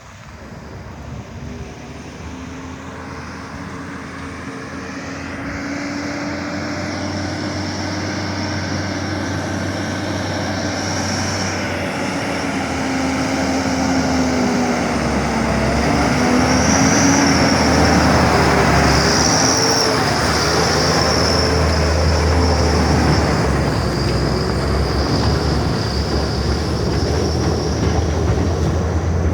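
Bulldozer working under load: its diesel engine labours while the steel crawler tracks squeal and clatter. The sound grows steadily louder over the first half as the machine comes closer, then stays loud.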